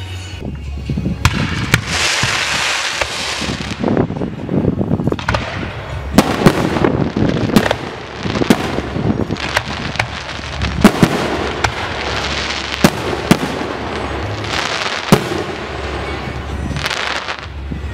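Daylight fireworks bursting overhead: many sharp bangs, some in quick succession, between rushes of hissing, crackling noise that last a second or two.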